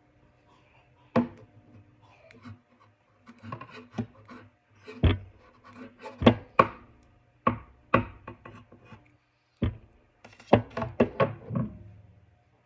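Hard objects being handled: irregular sharp clicks and knocks, with light scraping in between and a quick cluster of knocks near the end.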